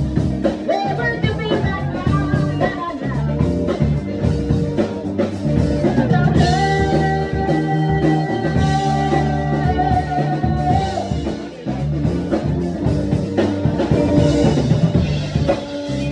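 Live rock band playing, with a female lead singer and a drum kit. A long held note sits in the middle.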